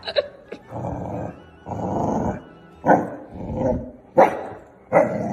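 Puppies play-growling and barking at each other: two drawn-out growls about a second in, then several sharp, high barks toward the end.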